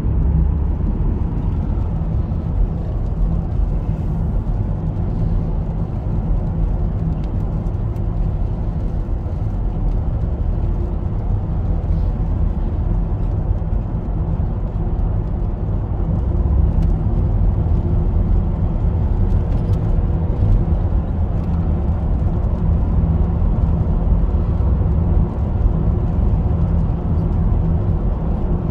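Car driving at a steady speed, heard inside the cabin: a constant low rumble of road and engine noise, with a few faint ticks.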